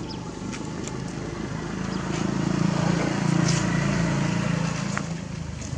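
A motor vehicle's engine humming steadily, growing louder about two seconds in and easing off again near the end, as it passes by.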